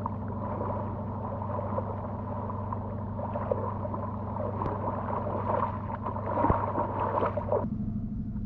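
Steady low drone of a river motor ship's diesel engine, with a rougher, noisier layer over it that cuts off suddenly near the end.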